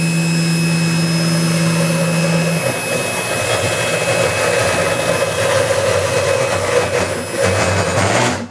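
Small desktop CNC mill running, its spindle motor giving a steady whine at first, then turning rougher about two and a half seconds in as the bit works into a piece of wood. The sound cuts off shortly before the end.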